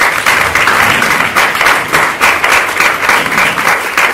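Audience applauding: loud, dense clapping from many hands, keeping up steadily without a break.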